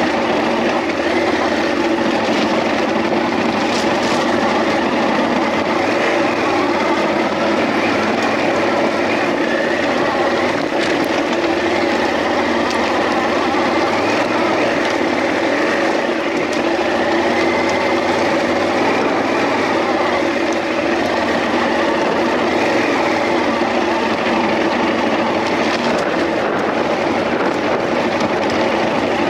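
Off-road motorcycle engine running steadily under load on a stony dirt track, its revs rising and falling several times.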